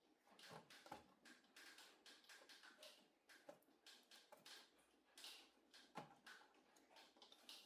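Near silence with faint, irregular clicks and light scraping from small objects being handled.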